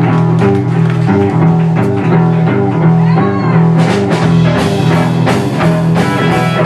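Live blues-rock band playing an instrumental passage: electric guitars over a steady, repeating bass line and a drum kit.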